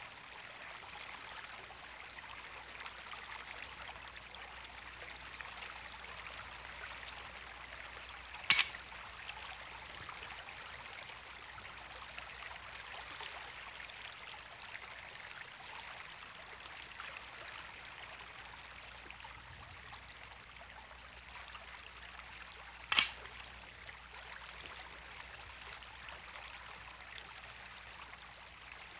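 Shallow stream running steadily over a stony bed, with two sharp clicks about fourteen seconds apart that are the loudest sounds.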